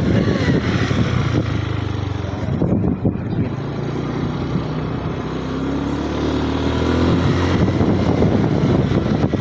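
Motor vehicle engines running steadily, with one engine rising in pitch as it speeds up about six seconds in.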